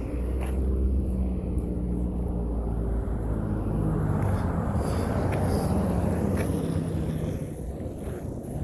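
Motor vehicle engine running with a steady low hum, and road noise from passing traffic that swells and fades around the middle.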